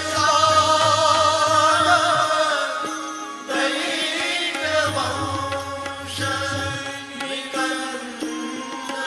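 Indian devotional bhajan music: a wavering, ornamented melody line over sustained low bass notes that come in and drop out every couple of seconds.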